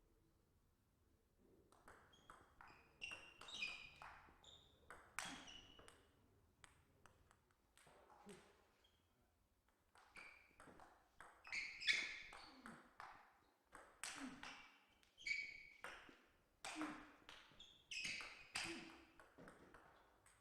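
Table tennis ball clicking off rackets and the table in quick succession, in two rallies with a short lull between them.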